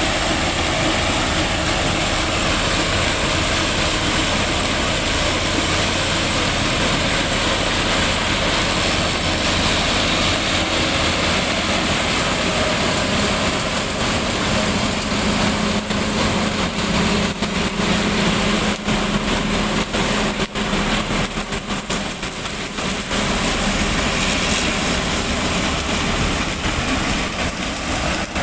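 Sugarcane harvester's diesel engine running steadily as it cuts cane to open a plot, with short dips and flutters in the noise in the second half.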